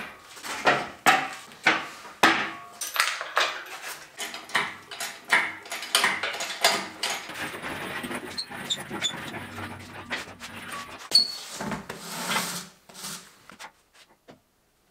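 Irregular clanks and knocks of heavy steel car parts being handled and set down on a concrete floor, with some scraping, dying away near the end.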